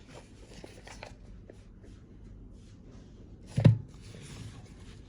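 Quiet handling of a cordless drill kit, with one sharp knock about three and a half seconds in as something hard is set down.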